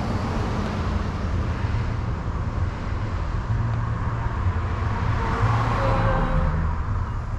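A car passing on a nearby road: steady tyre and engine noise that swells to its loudest about five seconds in, then eases, over a constant low rumble.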